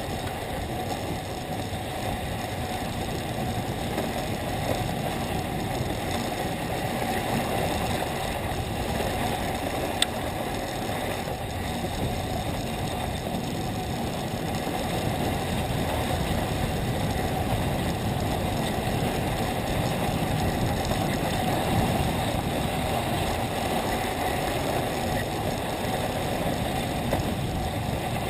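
Steady rumble and hiss of skis sliding over packed snow while being towed up a T-bar lift, growing slightly louder in the second half. A single sharp click comes about ten seconds in.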